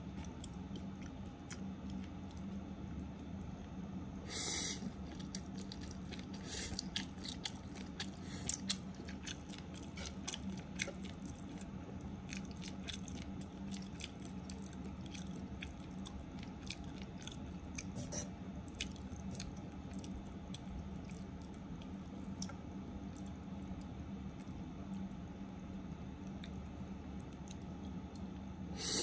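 Spaghetti with egg being stir-fried in a pan and tossed with wooden chopsticks: soft crackling and scraping with scattered clicks, and a sharper clack about four seconds in, over a steady low hum.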